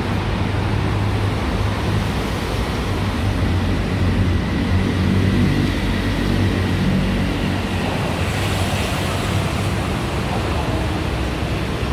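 Steady city road traffic: engines and tyres of passing vehicles, with a low engine hum that grows louder for a few seconds around the middle.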